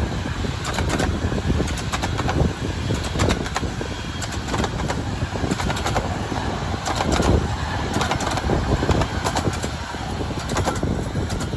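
Steam engine working hard, its exhaust beating in a fast, regular rhythm over a heavy, continuous rumble.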